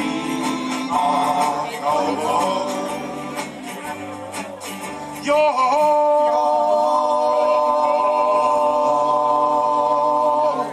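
Live acoustic band of guitars and banjo with group singing. About halfway through, the voices and instruments hold one long chord, which stops abruptly near the end.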